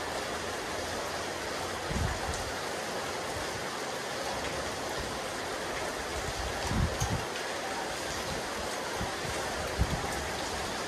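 Steady rain falling on a rooftop terrace, an even hiss of drops, with a few brief low buffets of wind on the microphone around two, seven and ten seconds in.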